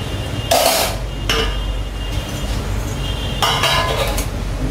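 Kitchen utensils clinking and knocking against a steel kadai. There are a few short, sharp strokes: the loudest about half a second in, another just after a second, and a pair around three and a half to four seconds in.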